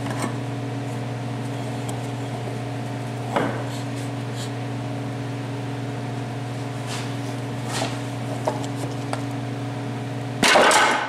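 Pneumatic air hammer running in a steady buzz, driving a wooden block against a steering shaft's upper collar to knock it off. A few sharp knocks come through, and it gets much louder and harsher near the end.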